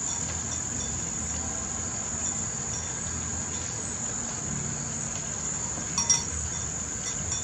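Insects trilling steadily in a high, unbroken tone, with a single sharp click about six seconds in.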